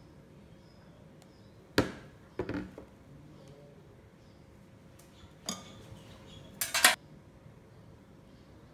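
Metal spoon clinking against bowls while scooping cake batter: a few sharp clinks, two about two seconds in, one about five and a half seconds in and a quick run of them near the end.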